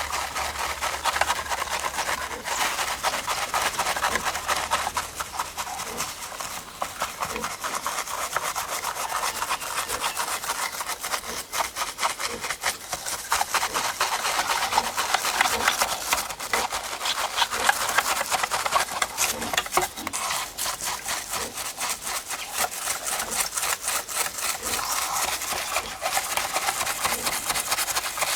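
Quick, continuous scrubbing and rubbing strokes on a small muddy diecast model car as it is cleaned.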